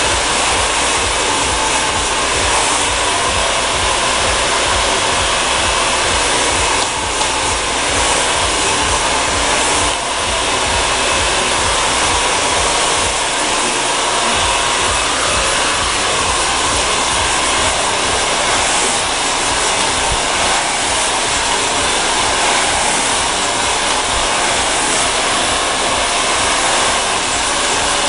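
Handheld hair dryer running steadily on a high setting with a concentrator nozzle fitted, blowing hot air through hair that is being dried over a large round brush.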